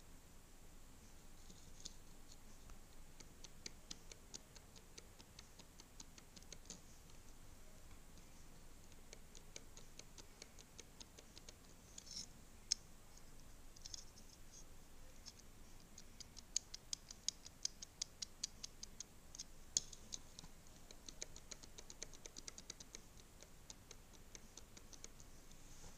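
Faint runs of quick plastic clicks from a cheap 360-degree rotating GoPro helmet mount being turned and wobbled by hand, with a few louder single clicks.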